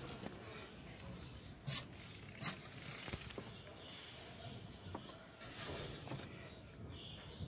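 A few short knocks and rustles of handling around a wooden box, two sharp ones about two seconds in and a longer rustle near the six-second mark.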